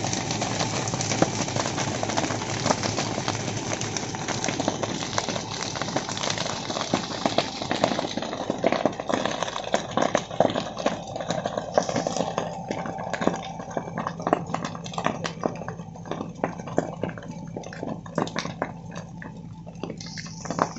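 Brush fire crackling and popping as it burns through dry undergrowth. The pops come thick over a steady rushing at first, then thin out to scattered pops in the second half.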